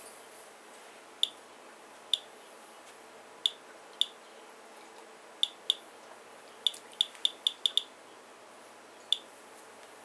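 Geiger counter clicking at random intervals, about thirteen clicks in ten seconds with a quick run of clicks past the middle, each click a detected radiation count. The rate matches the rain sample's average of about 85 counts per minute, more than twice the indoor background.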